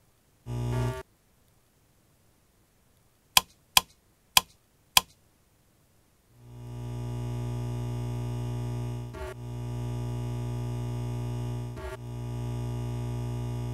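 Synthesized sound effects for an animated diagram: a short buzzing tone, then four sharp clicks as a rotary mode selector switch is turned notch by notch. After that, a steady low synthetic buzz stands for the input signal going high, and it drops out briefly twice.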